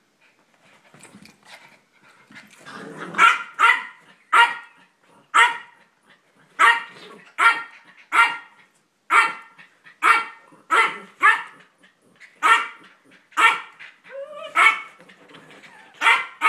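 Small dogs barking in play: a long run of sharp, high-pitched yaps, about one or two a second, starting about three seconds in. A short rising whine comes about two-thirds of the way through.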